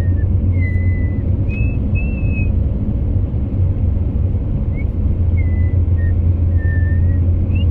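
Steady low road rumble of a car in motion, heard from inside the cabin, with a thin high whistle that comes and goes and shifts in pitch several times.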